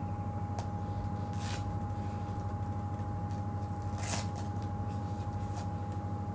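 Game-drive vehicle's engine running at low speed with an even, rapid low pulsing and a steady thin whine above it. Two short rustling bursts come about a second and a half in and again about four seconds in, the second the louder.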